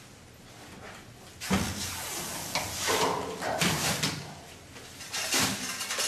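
Metal knocks and scraping as sheet-metal wall panels and their steel floor channel are worked into place. A sharp knock comes about a second and a half in, and irregular clatters and scrapes follow.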